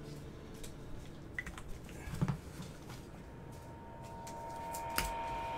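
Light clicks and taps of trading cards and a plastic card holder being handled in gloved hands, with a louder knock about two seconds in and a sharp click about five seconds in. A steady high tone starts about three seconds in and grows louder toward the end.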